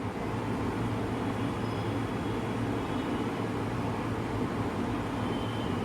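Steady background noise with a low hum and no distinct clicks.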